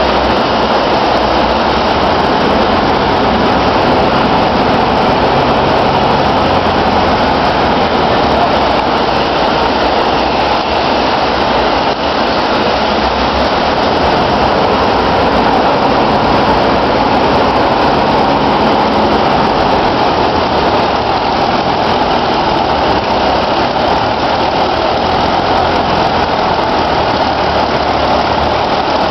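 Sturmgeschütz IV assault gun driving and turning under its own power: its engine running loudly and steadily, with the noise of the moving tracks.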